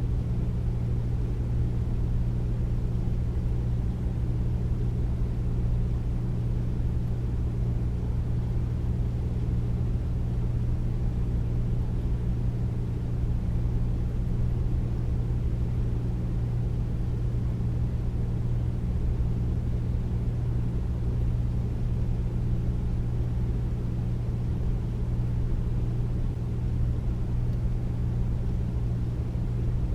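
Air conditioner running steadily: a deep, even hum with a few constant low tones and a soft rush of air above them, unchanging throughout.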